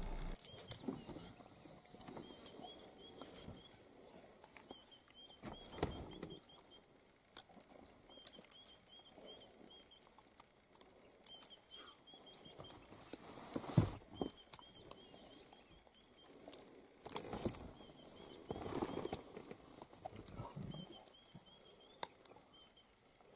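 Quiet outdoor ambience: short chirping phrases repeat over and over, with scattered rustles, clicks and a few knocks, the loudest knock about fourteen seconds in.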